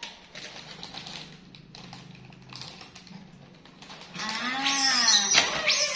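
Faint scattered taps and rustling, then about four seconds in a woman's loud, drawn-out "aaaa" of surprise, rising and falling in pitch, with crinkling on top.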